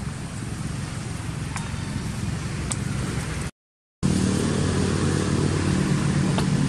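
A motor vehicle engine runs steadily in the background with a low, even hum. It drops out for a moment just past halfway, then comes back louder. A few faint clicks sit on top.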